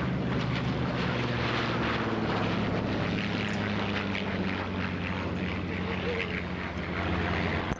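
A Vought F4U Corsair's Pratt & Whitney R-2800 radial and a North American P-51D Mustang's Merlin V-12 droning steadily as the two propeller warbirds fly past low together.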